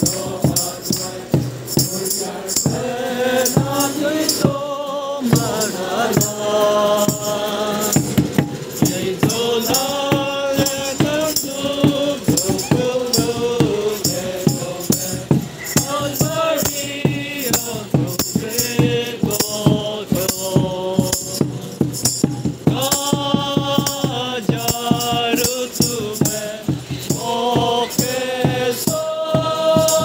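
A group of people singing a Christmas carol together, accompanied by shaken hand percussion keeping a steady beat.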